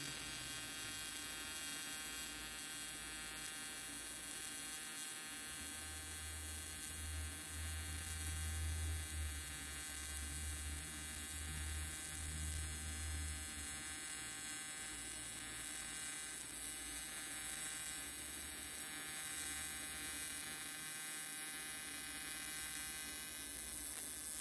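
AC TIG welding arc from an Everlast 325EXT welder, set to a 150 Hz AC frequency, running steadily as 4043 filler is fed into a patch on a cast aluminum valve cover: an even, electric buzz.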